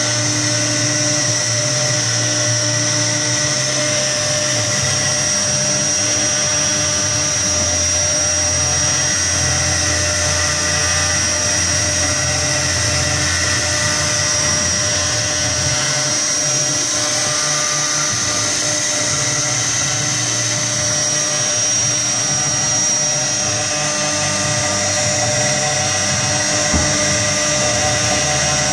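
CNC router spindle running with a V-shaped engraving bit cutting lettering into a white plastic sheet: a steady high whine over the cutting noise. Lower motor hums shift in pitch in steps as the machine moves the head from stroke to stroke.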